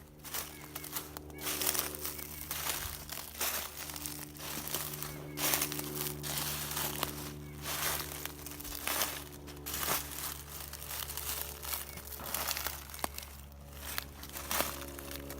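Footsteps crunching through dry fallen leaves, about one step a second, over a steady low hum.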